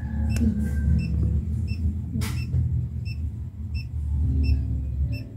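Handheld long-range treasure locator giving short, faint electronic beeps about twice a second, over a steady low rumble.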